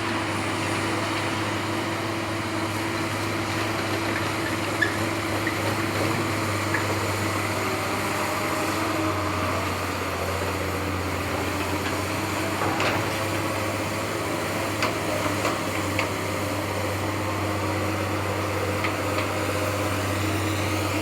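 Steady electric motor and pump hum from a radio-controlled excavator and dump truck running, its pitch shifting slightly now and then as the load changes, with occasional short clicks and knocks.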